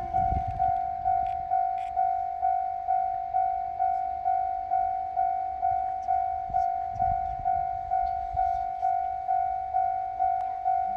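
Japanese level-crossing warning bell ringing steadily, a little over two strikes a second, each strike dying away. A low rumble comes at the start and again about seven seconds in.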